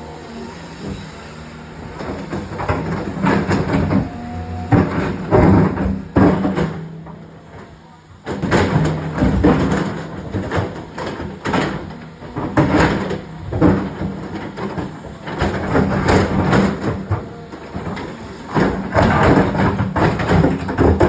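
Hydraulic excavator's diesel engine running under load, with repeated irregular metallic clanks and scrapes from its arm and attachment working on rock.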